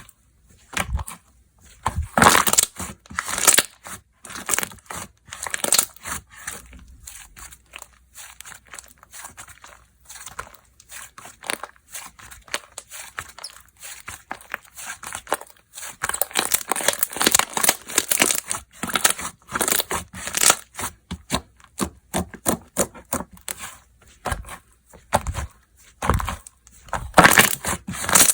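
Close-up crinkling and crackling from slime and its packaging being handled, in irregular bursts that grow denser from about 16 seconds in.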